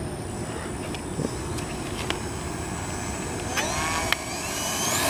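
Motor and three-bladed propeller of a radio-controlled model Cessna running low on the ground. About three and a half seconds in, a rising whine begins as the throttle opens for the takeoff run.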